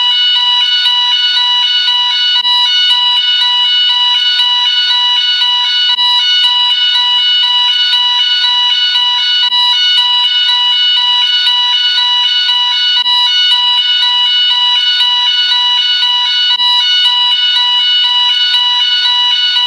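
Gent S-Quad fire alarm sounder sounding continuously: a steady high tone with a rapid, repeating pulse of other tones layered over it.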